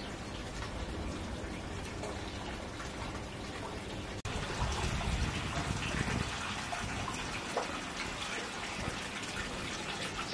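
Steady running water. About four seconds in it cuts abruptly to a louder stretch with more low rumble.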